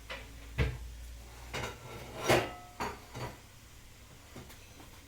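A handful of light knocks and clatters of household objects, about six of them spread out, the loudest a little past two seconds in.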